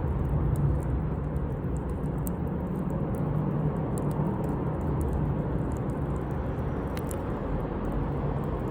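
Campfire burning: a steady low rumble with faint, scattered crackles from the burning wood, a slightly sharper pop about seven seconds in.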